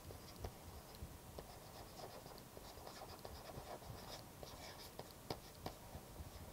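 Faint scratching and light irregular tapping of a stylus writing on a tablet.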